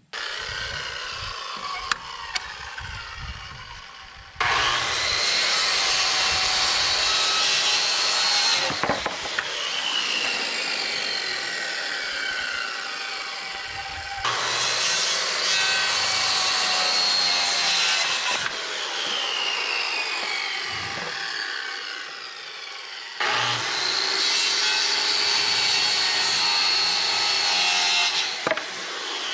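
Circular saw ripping lengthwise through wooden boards against a rip guide, with three loud spells of cutting of about four to five seconds each and quieter running between.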